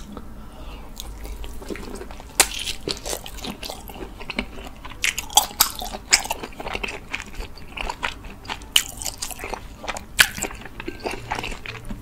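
Biting and chewing a thick piece of oak-smoked whole pork belly. Chewing starts softly, then from about two seconds in comes a run of sharp crackling clicks, several a second, between quieter wet chewing.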